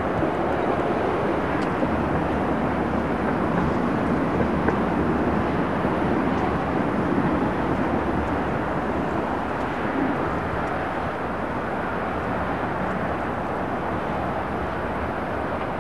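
Steady rumble and hum of E-series metro trains running slowly on open track, easing off a little in the second half.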